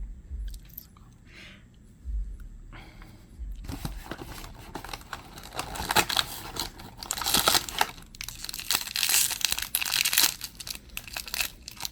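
A Disney Doorables blind-bag package being crinkled and torn open by hand, with a dense, uneven crackle that grows louder about halfway through, after a few soft handling thumps near the start.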